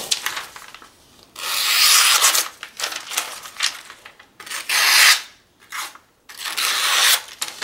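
Freshly sharpened carbon-steel knife slicing through sheets of paper to test the edge. Several slicing strokes, each a hiss up to about a second long, come roughly once a second.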